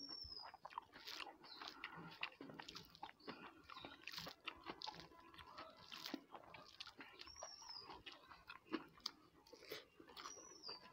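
Close-miked chewing and lip-smacking of a person eating rice and curry with her fingers: an irregular run of soft wet clicks and crunches. Three brief high squeaks come at the very start, about seven seconds in, and near the end.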